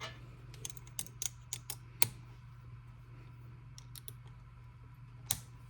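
Scattered light clicks and taps of small plastic and metal parts being handled and worked loose while a power drill is taken apart. The clicks are irregular, the sharpest about two seconds in and near the end, over a low steady hum.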